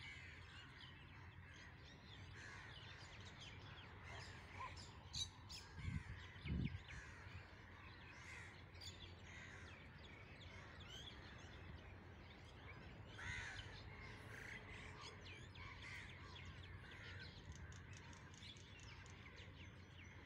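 Crows cawing on and off, with scattered fainter bird chirps over a low steady rumble; a couple of low thumps about six seconds in.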